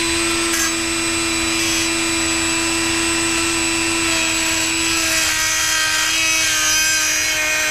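Handheld rotary tool with a small cut-off wheel grinding into the head of a bolt. It gives a steady high-pitched whine with a grinding hiss, and cuts off abruptly at the end as the piece of the bolt head comes off.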